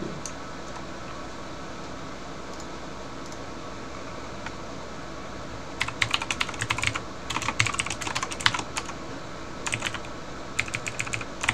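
Typing on a computer keyboard: a few lone keystrokes, then a pause, then short bursts of rapid key clicks from about six seconds in.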